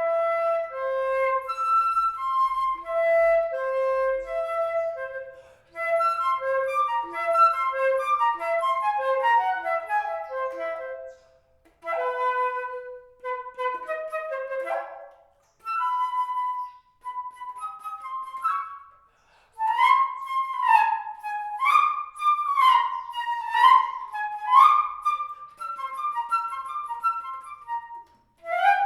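Solo flute playing a melody in phrases separated by short pauses; from about twenty seconds in, the line turns into quicker passages with swooping pitch bends.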